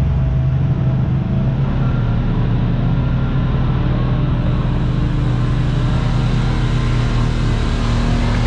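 Side-by-side UTV engine, a Kawasaki Teryx KRX 1000's parallel twin, running under way. Its note rises slightly over the first couple of seconds, then holds steady.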